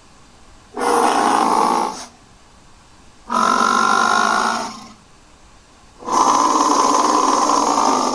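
Three long, pitched creature calls, each one to two seconds, separated by quiet gaps. This is a made-up voice for the Monocorn, a fictional creature, built from dinosaur and moose sound effects.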